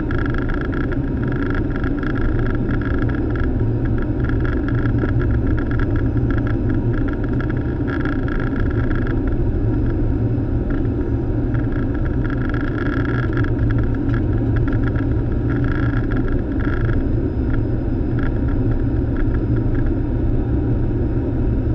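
Steady, loud flight-deck noise of a Boeing 737 in descent: a continuous rush of air over the airframe with a deep drone underneath, without distinct events.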